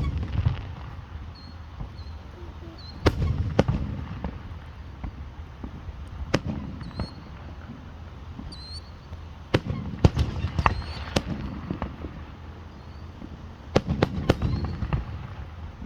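Fireworks going off: sharp bangs in pairs and small clusters every few seconds, each trailed by a low rumble.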